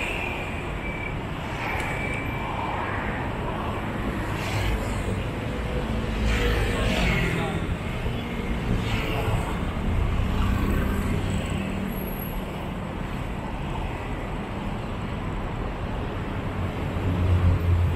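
Busy city road traffic: a steady rumble of engines and tyres that swells several times as vehicles pass close by, loudest near the end.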